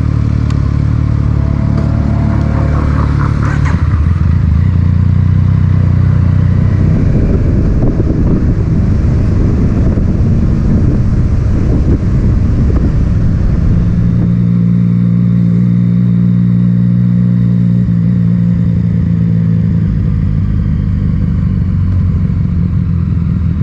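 Three-cylinder motorcycle engine with an Akrapovic titanium exhaust, running steadily and then rising in pitch as it revs a few seconds in. It runs rougher and noisier for a stretch, then settles into a steady engine tone about two-thirds of the way through.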